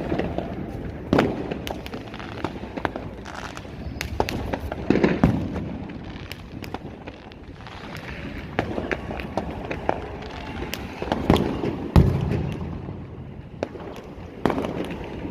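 Fireworks going off: a run of irregular sharp cracks and pops, with several louder bangs among them.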